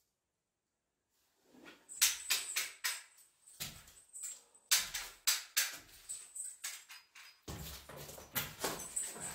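Irregular knocks, clicks and rustling clatter from objects being handled and set down, starting about two seconds in after a moment of silence.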